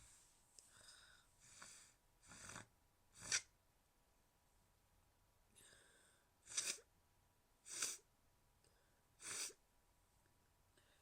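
A woman's stifled sneezes. A couple of breathy catches lead into the first held-back sneeze about three seconds in, the loudest, and three more short stifled sneezes follow over the next six seconds.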